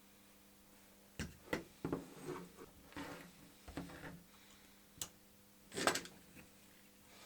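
A run of small clicks, taps and rustles from hands handling small parts and tools during soldering work on a workbench, the loudest cluster near the end, over a faint steady hum.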